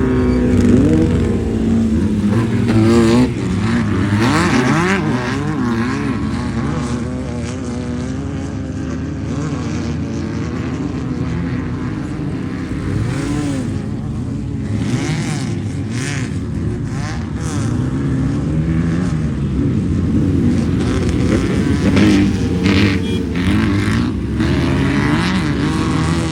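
Off-road race car's engine revving up and down under load as it drives over rough desert terrain, with rattles and knocks from the bumps, heaviest in the second half.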